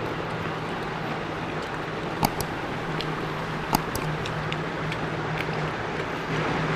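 Eating noises: a few sharp clicks and fainter ticks, two of them standing out, over a steady low hum and background hiss.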